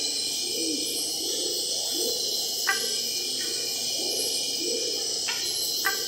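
Nocturnal Amazonian primary rainforest: a dense, steady insect chorus high in pitch, with repeated lower animal calls beneath it and three short, sharp calls, about three seconds in and twice near the end.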